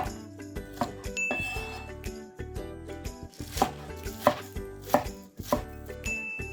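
Kitchen knife chopping ingredients on a cutting board: a series of sharp, irregular strikes, the loudest clustered in the second half, over upbeat background music.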